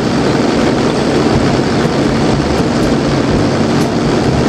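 Kubota mini excavator's diesel engine running steadily under load as its hydraulic log grapple lifts a log.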